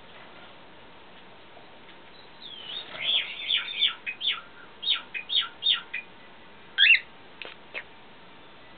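Cockatiel chirping: after a couple of quiet seconds, a quick run of short falling chirps for about three seconds, then one louder call about seven seconds in and two short chips just after.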